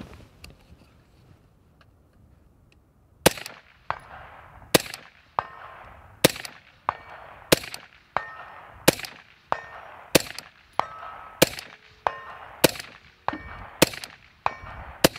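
Suppressed AR-15 in 6.5 Grendel firing semi-automatically in steady rapid fire after about three quiet seconds, roughly nineteen shots at about one and a half a second, each shot with a short ringing tail.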